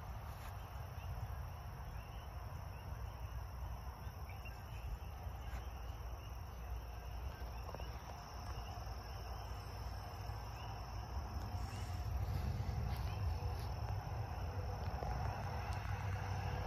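Outdoor farm ambience: a low rumble of wind on the microphone, faint rapid chirps of birds in the first half, and a steady high insect drone from about halfway on.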